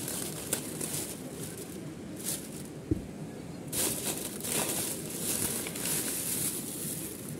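Thin plastic shopping bag rustling and crinkling as a hand rummages through the snack packets inside it. The rustling grows busier in the second half, and there is one dull thump about three seconds in.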